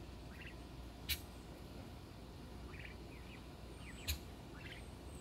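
Young turkeys giving short, faint peeps, with two sharp clicks about three seconds apart standing out as the loudest sounds.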